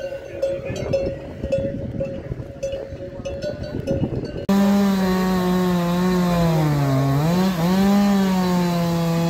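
Livestock bells clanking with a ringing tone. About four and a half seconds in, this cuts off abruptly and a small engine is heard running at high revs; its pitch sags sharply for about a second, then recovers, as a small two-stroke does when it takes a load.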